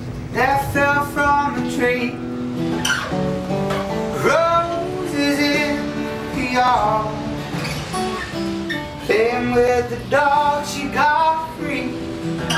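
A song: a voice singing over strummed acoustic guitar.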